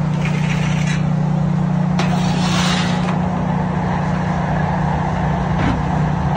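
A steady low hum of a running engine, with a rumble beneath it. A few brief noises sit over it, the clearest about two to three seconds in.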